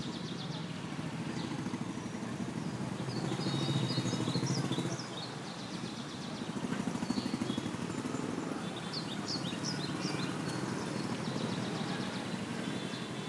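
Birds chirping in short bursts over a louder, uneven low rumble that swells twice.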